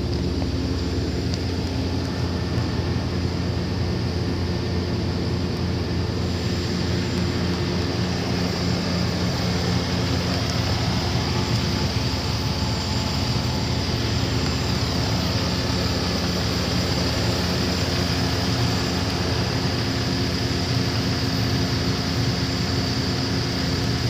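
An engine running steadily: a constant low drone that holds the same pitch and level throughout.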